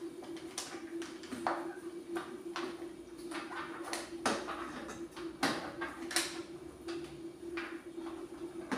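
A damp microfibre cloth being stretched and tucked over a plastic flat-mop head by hand: irregular soft rustles of fabric and small plastic clicks and knocks, over a faint steady hum.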